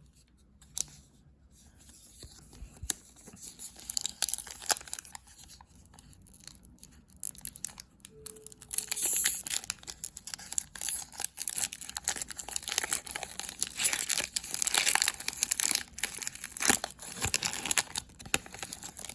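Wrapper of an Upper Deck hockey card pack being torn open and crinkled, with irregular crackling that grows busier and louder about halfway through.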